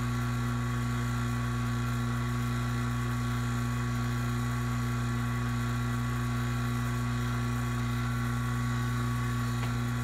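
Refrigeration vacuum pump running with a steady, even hum while it pulls a deep vacuum on manifold gauges.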